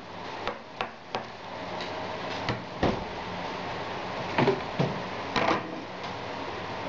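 Wooden spatula stirring and scraping thick gravy in a nonstick frying pan, with a series of sharp knocks and clatters of the spatula against the pan, over a steady low hiss.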